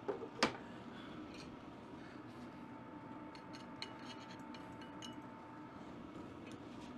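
Handling of small metal parts: one sharp click about half a second in, then faint scattered light clicks and clinks.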